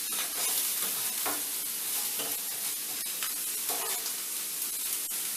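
Sausages sizzling steadily in a hot skillet, with a few light knocks and scrapes of a utensil turning them.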